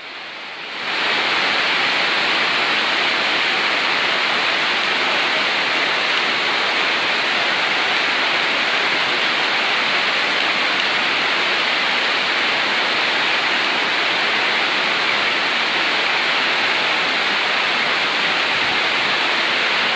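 Torrential rain and floodwater rushing down a street: a dense, steady roar of water that rises sharply about a second in and then holds level.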